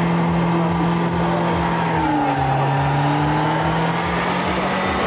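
Trabant doing a burnout: the engine is held at high revs while the driven wheels spin and smoke the tyres. The steady note dips slightly about two seconds in, then holds again.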